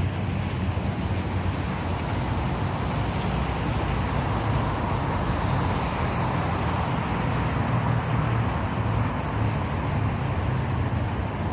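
Steady city background noise: a constant low rumble under an even hiss, swelling a little midway, like traffic heard on a street.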